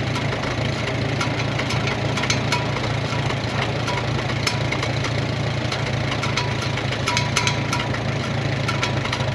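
1941 Farmall M's four-cylinder gasoline engine idling steadily, with scattered light clicks over the drone.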